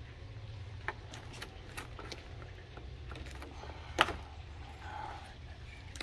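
Small clicks and ticks of a hand crimping tool and metal spade connectors being handled and worked, with one sharp loud click about four seconds in, over a steady low hum.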